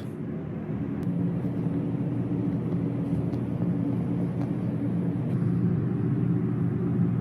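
Steady low hum and rumble with a few faint ticks.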